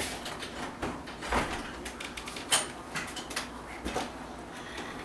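Freight cars of a CSX mixed freight train rolling past, their wheels giving irregular metallic clunks and knocks on the rails, one with a brief high squeal.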